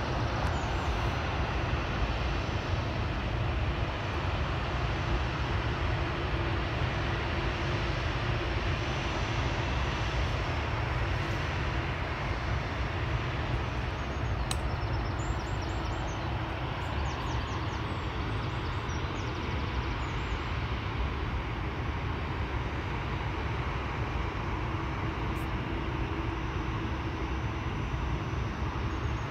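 Jet airliner engines running, a steady rushing noise heavy in the low end that eases slightly in the second half, with faint high whining tones that slide down in pitch about halfway through.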